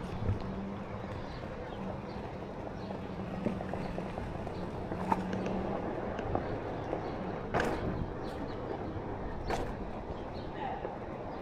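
Street ambience heard from a moving Onewheel: a steady background rush with a faint low hum, and two sharp clicks or knocks in the second half.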